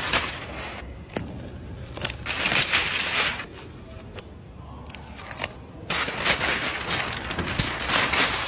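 Wrapping paper being torn and crumpled by hand, in several loud rustling bursts with quieter gaps between them, and a sharp click about a second in.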